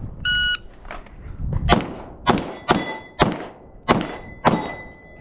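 A shot timer's start beep, then six quick 9mm shots from a Glock 45 pistol over about three seconds. Steel targets ring after the hits.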